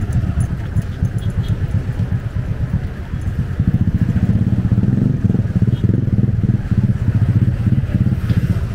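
Helicopter in flight, heard from on board: a steady low rumble of rotor and engine with rapid pulsing, growing louder about a third of the way in.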